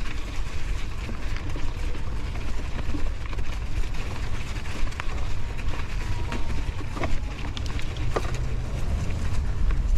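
Mountain bike being ridden over a rough dirt trail: wind buffeting the microphone and tyre noise, with a few sharp clicks and rattles from the bike around the middle and later part.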